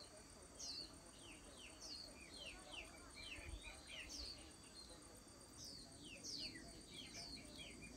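Faint outdoor chirping: short, high chirps that fall in pitch, coming irregularly a few times a second over a quiet background.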